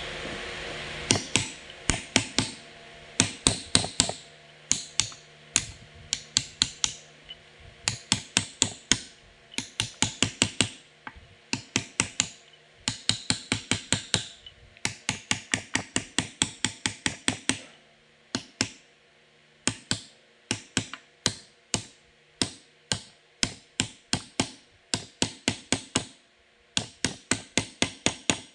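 Sharp metallic taps in quick runs of about four to six a second, with short pauses between runs, from hand work on a forklift transmission's clutch drum and bearing assembly.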